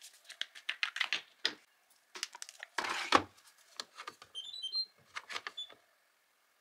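Glass jars and bottles knocking together as they are handled, with a louder knock about three seconds in. Then a Candy Simply-Fi washing machine's control panel plays a short rising series of electronic beeps, followed by a single beep as the program dial is turned.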